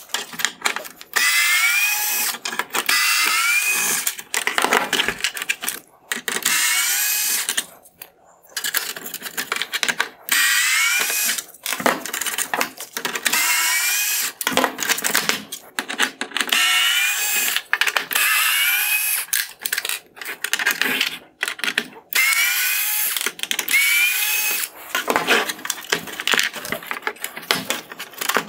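Small cordless electric screwdriver backing out T20 Torx screws from a plastic headlight housing. It runs in about a dozen short runs of one to two seconds with brief pauses between them, its motor whine rising and falling in pitch.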